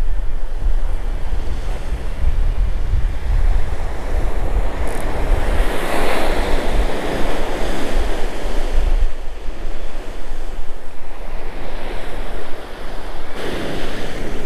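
Ocean surf breaking and washing up the beach, one wave swelling about halfway through and another near the end, with wind rumbling on the microphone.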